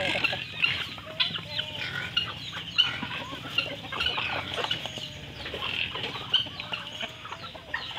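A flock of free-range chickens clucking while they feed on scattered grain, with many short calls overlapping.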